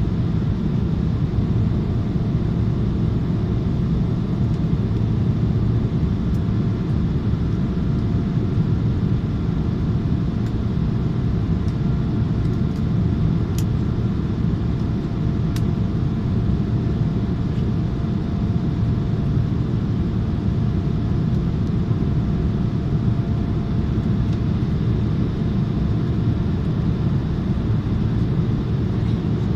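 Steady cabin noise of a jet airliner in flight: an even, deep rumble of engines and rushing air with a faint steady hum above it. Two faint ticks come about halfway through.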